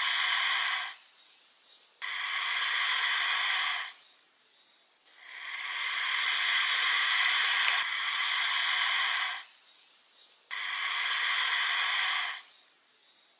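A snake hissing in repeated long bursts, about four of them, with a quieter pause between each one.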